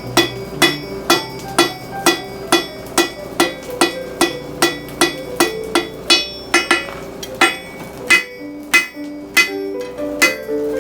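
Blacksmith's hammer striking steel on an anvil at a steady pace, about two blows a second, each blow leaving a brief metallic ring.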